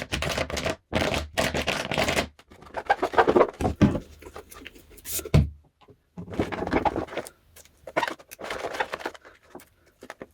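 Scraping, clicks and knocks of plastic cups and a bottle being handled while balloons are filled with glue, with a heavier knock about five seconds in.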